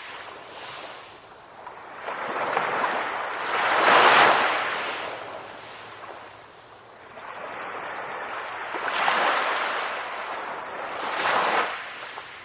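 Ocean waves breaking and washing up onto the shore: surges of surf that swell and ebb, three in all, the loudest about four seconds in.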